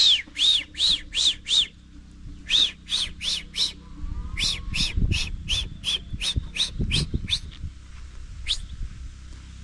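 A bird calling loudly, a rapid series of short, arched high notes about three a second, in several runs with brief pauses between.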